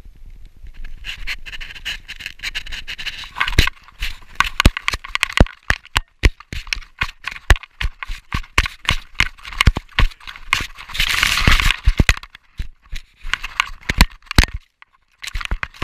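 A dog running with a GoPro strapped to it: from about three and a half seconds in, the camera knocks and rattles in a rapid, irregular run with each stride, with scraping against the mount. A louder rush of noise lasts about a second, near eleven seconds in.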